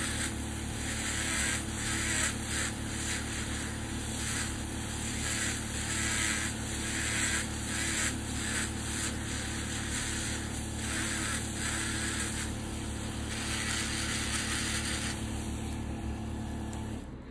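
Podiatry rotary nail drill running steadily, its burr grinding a fungal toenail in short repeated passes. The grinding stops near the end while the motor hum carries on briefly.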